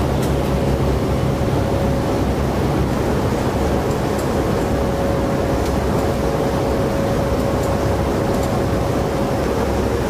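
Steady engine and airflow noise inside the cargo hold of a military transport aircraft in flight: a loud, even roar over a low drone, with a thin steady whine held through it and a few faint clicks.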